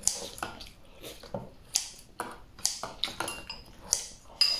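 Chopsticks clicking and scraping against a ceramic rice bowl as rice is shovelled in, irregular light taps about every half second. A few short ringing clinks come near the end.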